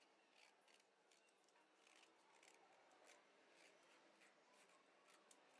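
Near silence, with faint irregular light clicks and scrapes.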